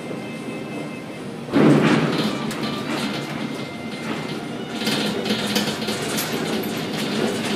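Container gantry crane at work: a sudden heavy clunk about a second and a half in, then a continuing clattering run with repeated knocks.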